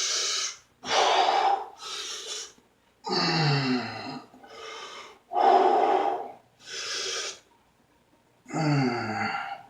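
A man's loud, forceful breathing: a string of sharp huffs and gasps, each lasting up to about a second, with a low voiced grunt that drops in pitch about 3 s in and another near the end.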